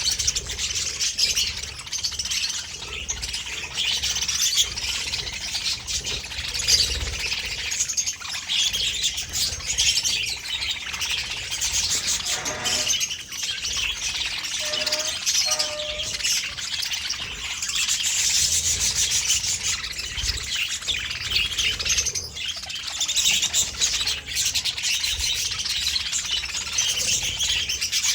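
A flock of budgerigars chattering continuously in dense high chirps, with a few lower-pitched calls about halfway through.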